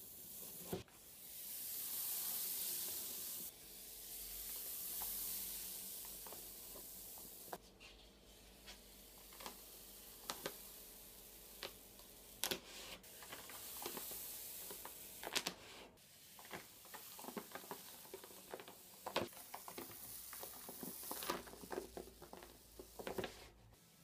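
Printing paper being peeled off a freshly inked linocut block, the tacky ink letting go with a sizzling, crackling hiss. The hiss swells and fades twice in the first seven seconds, then gives way to a run of sharp crackles and clicks as the paper comes free.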